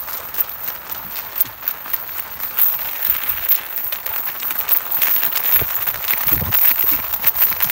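A pit bull pulling hard on its leash along pavement with the handler hurrying behind: a steady rushing noise full of quick scuffs and clicks from footsteps and the jostling harness and leash, with a few low thumps past the middle.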